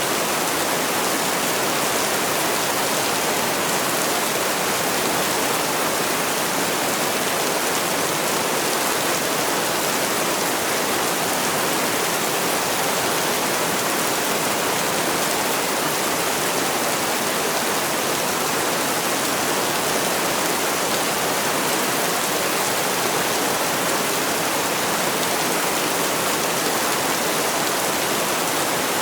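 Heavy rain falling as a steady, even hiss, with no single drops, thunder or music standing out.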